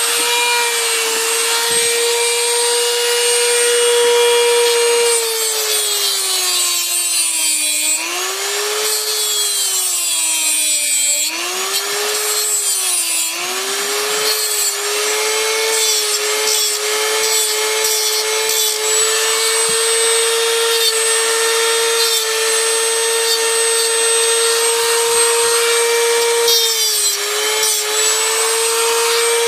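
Dremel rotary tool with a cutoff disc grinding metal off a typewriter's margin stop: a steady high motor whine with a grinding hiss, the pitch sagging several times as the disc bites into the metal under load.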